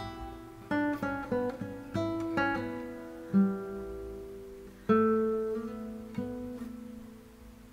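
Background music: an acoustic guitar plucking single notes and chords that ring out, dying away near the end.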